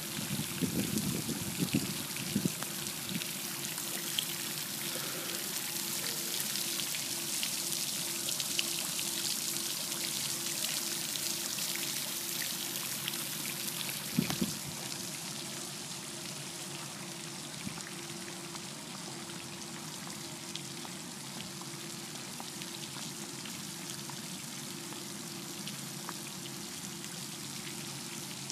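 Fountain jets spraying and splashing into a reflecting pool: a steady rush of falling water, with one sharp knock about halfway through.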